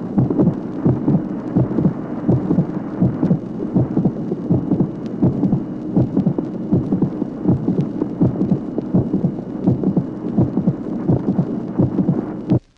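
Recorded human heart sounds: a steady run of heartbeats with a short, dry click late in systole, a late-systolic click that marks a minor anomaly of the mitral valve. A faint steady hum lies underneath, and the recording stops abruptly near the end.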